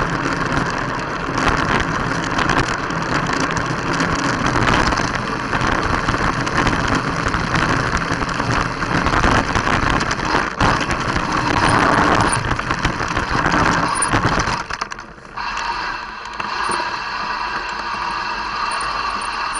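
Mountain bike riding over a rough chalk-and-gravel track: the tyre rumbles and the bike and the camera mount rattle. About fifteen seconds in the noise drops suddenly and becomes quieter and steadier.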